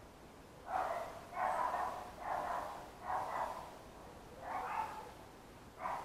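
An animal calling six times in an uneven series, each call short and harsh.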